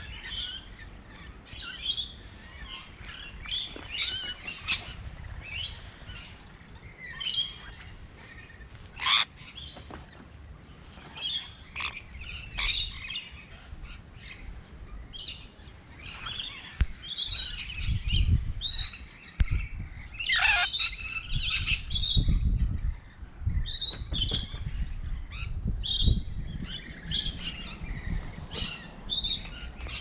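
Rainbow lorikeets calling, with many short, shrill chirps and squawks in quick succession. A low rumble on the microphone comes in through the second half.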